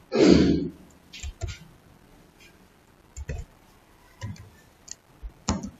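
Computer keyboard keystrokes: a handful of short, scattered clicks spread over several seconds, after a brief louder sound at the very start.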